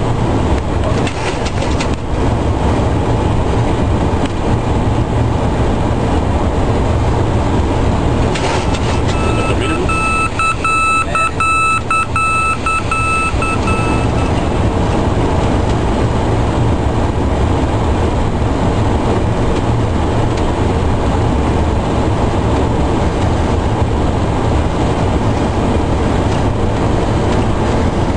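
Steady rush of air and engine noise in the cockpit of a Boeing 727-200 on final approach. About a third of the way in, a beeping tone pulses for about five seconds, the middle marker beacon signal heard as the jet passes over it on the approach.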